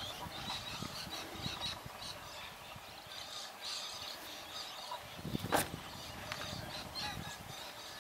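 Outdoor lakeside ambience: birds calling on and off, over a low uneven rumble of wind on the microphone, with one sharp knock about five and a half seconds in.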